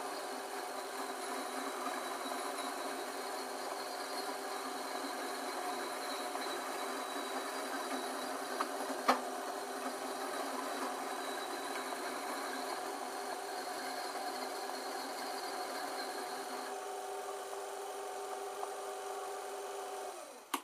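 Small bench lathe running steadily with its motor whine while a flat abrasive file is held against the spinning copper pipe, grinding its surface. A single sharp click comes about halfway through. The filing stops a few seconds before the end, and the lathe then cuts off suddenly.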